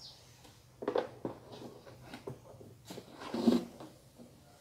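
Handling of a plastic three-bulb heater-lamp housing as it is lifted and turned over on a tiled floor: a few scattered knocks, clicks and scrapes. A short, low, pitched sound, louder than the rest, comes about three and a half seconds in.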